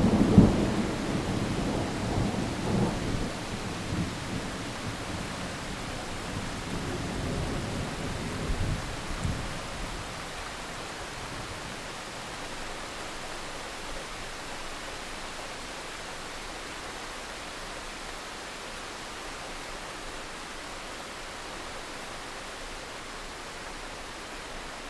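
Thunder rumbling over steady rain, swelling again a couple of times before dying away about ten seconds in. It leaves only the even hiss of the rain.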